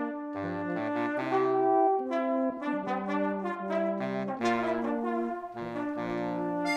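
Brass ensemble playing music: several instruments hold sustained notes together over a low bass line, the harmony moving every half second to a second.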